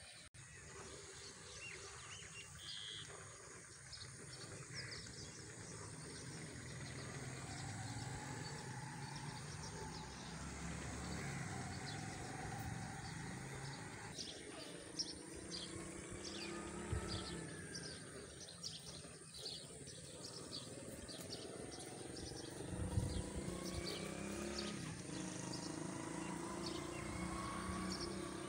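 Cow being hand-milked: repeated squirts of milk hitting a steel bucket in a quick, uneven rhythm, with birds calling in the background.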